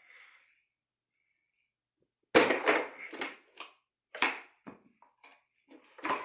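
A run of sharp clatters and knocks of hard plastic and tools being handled while a loudspeaker is opened up. The first, about two seconds in, is the loudest, and a handful of lighter knocks follow at uneven gaps.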